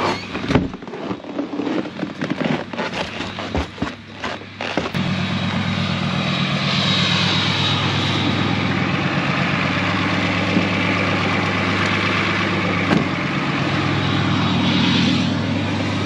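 Footsteps crunching on snow-covered steps, then from about five seconds in a 5.9 Cummins diesel in a Dodge Ram pickup idling steadily.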